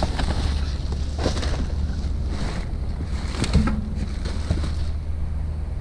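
Rustling and a few sharp knocks of goods being handled while rummaging through trash, over a steady low rumble.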